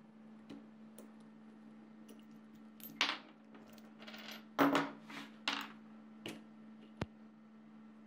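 Light metallic clinks and rattles as a small steel bearing puller is worked off a ceiling fan motor's shaft and the ball bearing comes free. The clinks come in a cluster from about three seconds in, the loudest in the middle, with a single sharp click near the end, over a faint steady hum.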